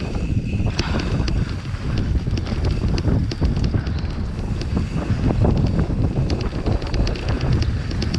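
Wind buffeting the microphone of a camera on a moving mountain bike, over a steady rumble of tyres on a dirt trail, with scattered clicks and rattles from the bike on rough ground.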